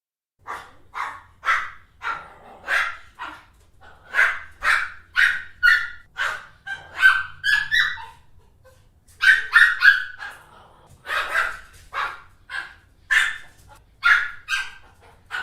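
Pomeranian barking in a fast, agitated run of short, high-pitched yaps that come in quick clusters, with brief pauses about two-thirds of the way through.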